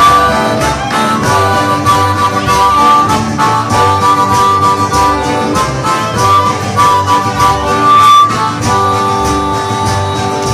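Live band in an instrumental break: a harmonica plays long held notes over strummed guitar and a steady beat.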